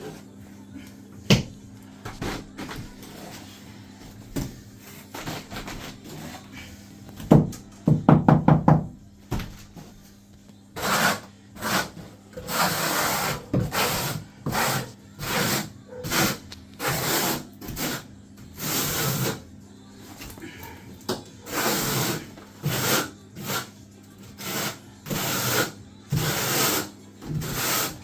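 Decoupling matting being smoothed down into floor adhesive: a few knocks and a quick run of taps, then steady scraping strokes about once a second.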